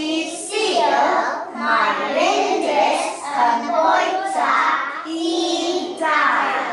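A group of young children singing together in short phrases.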